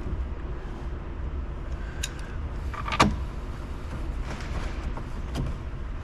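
Hand-tool handling around the steering column and lower dash: a light click about two seconds in and one sharp knock about three seconds in, over a steady low background hum.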